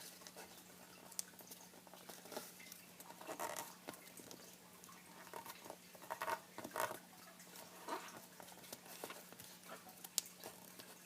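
Square sheet of origami paper being folded and creased by hand: irregular soft crinkles and taps of the paper, loudest in a few clusters, over a faint steady hum.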